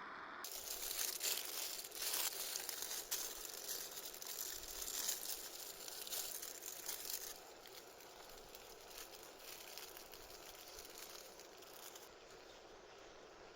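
Crinkling and rustling, with many small crackles, loudest in the first seven seconds and then fading to a quieter rustle.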